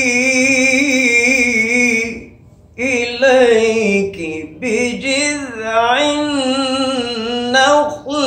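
A man's solo melodic Quran recitation. He holds one long wavering note, breaks for a breath about two seconds in, then resumes with a melodic line sliding up and down.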